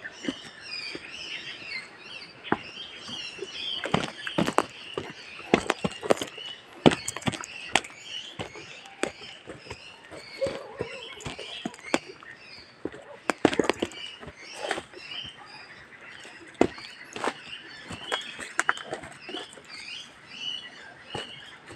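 Footsteps crunching and snapping through dry leaves and twigs on a forest trail, at an irregular walking pace, with small birds chirping throughout.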